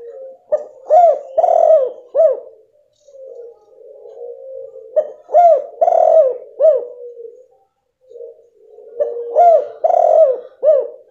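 Spotted dove (tekukur) calling: three coo phrases about four seconds apart, each a quick run of short rising-and-falling notes, with a low steady hum between them. It is a female's call, used as a lure to set a silent male cooing.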